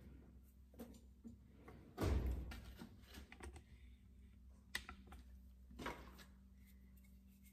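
Handling noise: a phone camera being picked up and carried, with a louder bump about two seconds in, then light clicks and knocks as a hammer head and wooden handle are picked up at a steel workbench. A faint steady hum runs underneath.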